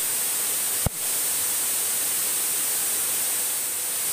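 Steady hiss of static on the aircraft's radio and intercom audio feed, with a thin high tone held under it and a single click about a second in.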